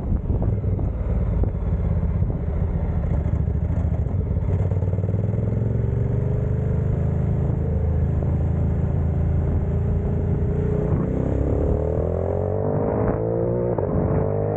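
Ducati Multistrada 1260's V-twin engine running under way on the road. Its pitch sags gently through the middle, then climbs steadily over the last few seconds as the bike accelerates.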